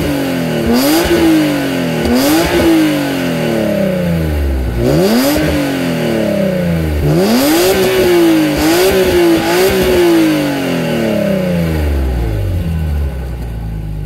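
BMW E36 M3's 3.2-litre straight-six free-revved, heard at the tailpipe. About six quick blips each climb sharply and sink slowly back, and near the end it settles to a low idle.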